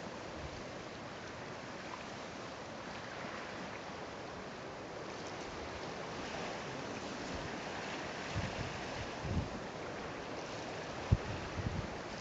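Steady wash of choppy sea water and wind along a rocky shore. A few low thumps of wind buffeting the microphone come in the last few seconds; the sharpest, about eleven seconds in, is the loudest sound.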